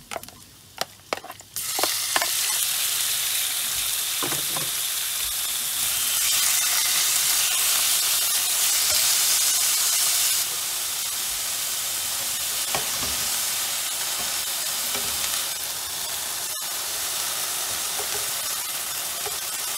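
Raw chicken breast pieces frying in hot oil in a nonstick pan. A loud, steady sizzle starts suddenly about one and a half seconds in as the chicken hits the oil, with a few taps and scrapes of a spatula, and the sizzle eases a little after about ten seconds.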